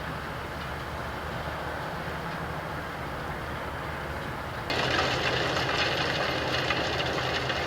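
CLAAS Axion 960 Terra Trac tractor's engine running steadily under load as it pulls a Philip Watkins Incorporator cultivator, with the rushing, clattering noise of the tracks and the working implement. About two-thirds of the way through the sound jumps abruptly louder and harsher, with a thin high whine on top.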